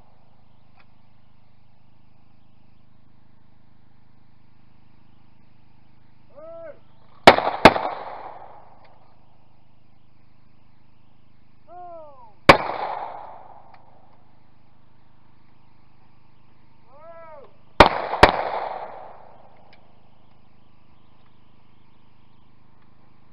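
Shotgun shots at a clay-target range, in three groups: a double about seven seconds in, a single shot about five seconds later, and another double near the end, each shot trailing off in a short echo. A short shouted call comes just before each group.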